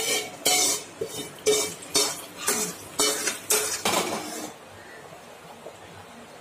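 A metal spoon scraping and knocking against a non-stick kadai as the tempering is emptied into the pot of gravy. The strokes come about twice a second, each with a brief metallic ring, and stop about four and a half seconds in.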